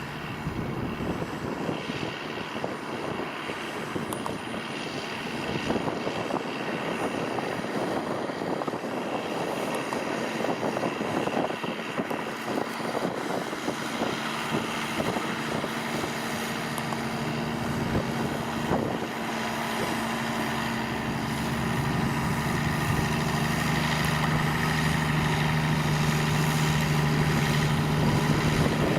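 New Holland tractor's diesel engine working under load while pulling a plough, a steady drone that grows louder over the second half.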